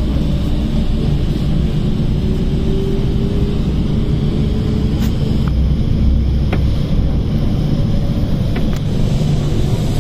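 MTR K-Train electric multiple unit pulling away from a station: a steady low rumble from the running gear, with a faint motor whine that rises slowly in pitch as the train speeds up.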